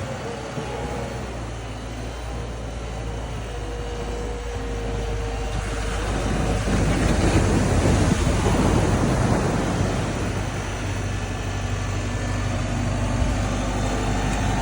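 Bulldozer's diesel engine running steadily, growing louder and noisier from about six seconds in as it works, loudest a couple of seconds later, then easing back a little.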